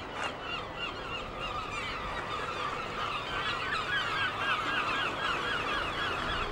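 A flock of birds calling, many short overlapping calls repeating densely without a break.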